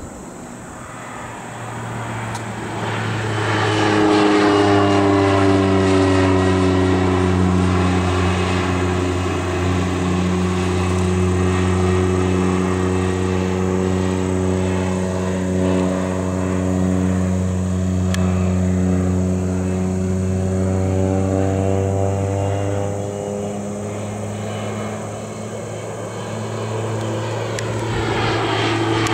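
Crop duster's propeller engine droning low overhead, swelling in over the first few seconds; its pitch sinks slowly through the middle and rises again near the end as it grows loud once more.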